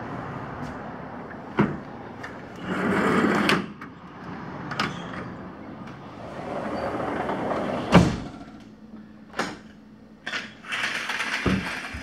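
Sliding balcony door rolling in its track, with a series of knocks and one louder thump about eight seconds in.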